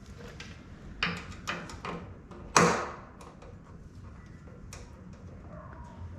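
A scatter of sharp clicks and knocks from hand tools and small hardware being handled while marker lights are screwed onto a trailer. The loudest knock comes about two and a half seconds in.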